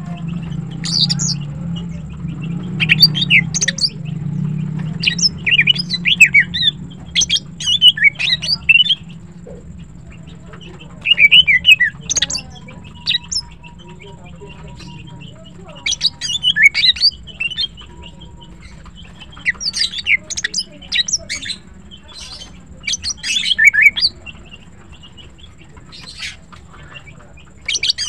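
Female cucak ijo (green leafbird) calling: loud clusters of fast, sharp chirps and squawks, broken by pauses of a second or two.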